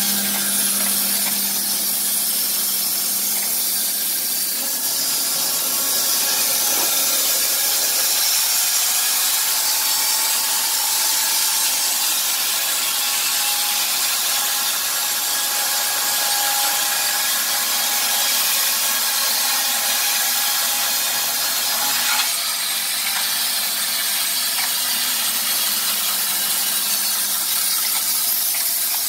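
Wood-Mizer LT15 portable bandsaw mill running on its electric motor, the band blade sawing steadily along a squared timber cant. A short click about 22 seconds in.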